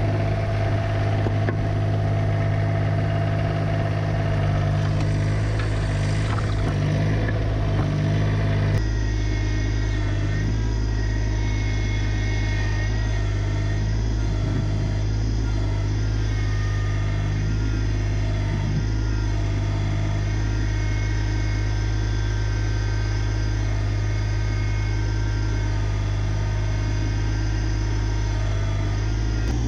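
New Holland Workmaster 25S compact tractor's three-cylinder diesel engine running steadily as the tractor drives with its front loader. The sound changes suddenly about nine seconds in, then runs on evenly.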